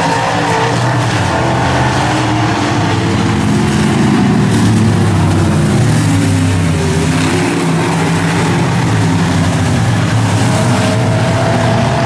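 Several dirt modified race cars' engines running hard together on the track, their overlapping engine notes wavering up and down in pitch.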